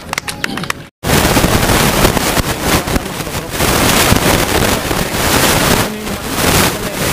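Loud, rough rushing noise of wind buffeting an outdoor microphone, swelling and dipping unevenly. It starts abruptly after a short dropout about a second in.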